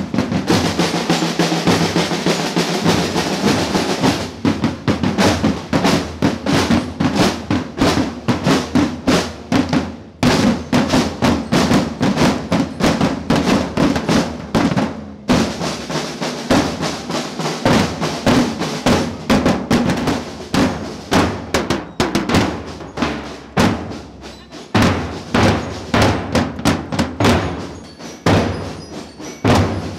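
Marching band drum corps playing in a street parade: many snare drums and bass drums beating a marching rhythm. The first few seconds are a drum roll, then a steady beat with a couple of short breaks.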